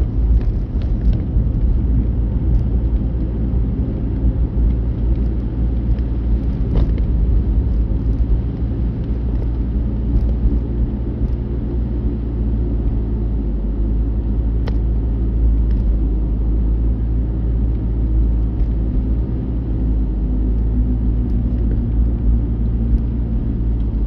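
Car being driven, heard from inside the cabin: steady low engine and road noise with a few faint clicks.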